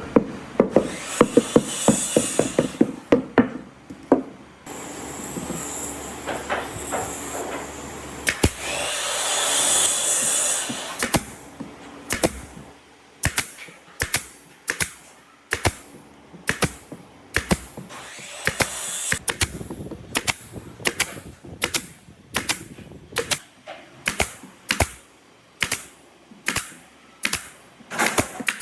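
Woodworking tools on wood pieces. A quick run of sharp taps comes first. A few seconds of steady rasping follow near the middle. Then evenly spaced sharp taps come a little over once a second.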